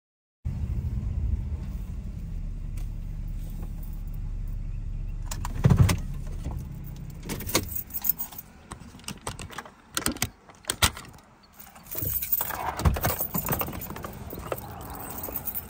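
A car engine's low hum heard from inside the cabin, ending after a thump about six seconds in. Keys jangle after that, with scattered sharp clicks and knocks and a short rush of noise about two thirds of the way through.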